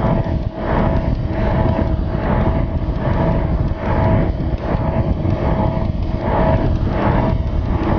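Evinrude Intruder outboard motor running hard at high speed, a steady engine whine under heavy wind buffeting on the microphone and the rush of spray.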